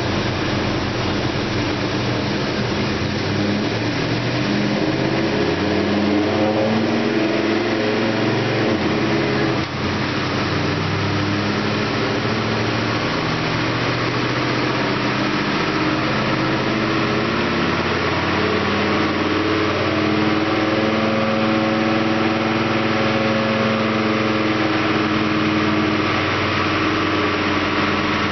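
A 1964 Ford Falcon's 306 small-block V8 (a stroked Ford 302) is run on a chassis dynamometer, driving through an automatic transmission. The engine note climbs in pitch in two long stretches, with a brief drop about ten seconds in.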